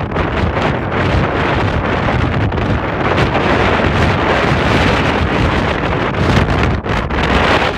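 Wind buffeting the phone's microphone: a loud, steady rumble and rush with no pauses.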